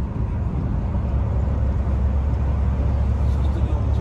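Steady low rumble of a Volvo B11R coach cruising on the highway, heard from inside the driver's cab: engine drone and road noise.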